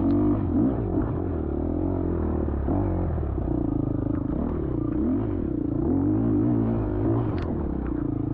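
Dirt bike engine revving up and down again and again as it is ridden hard over rough trail. A sharp knock about seven seconds in.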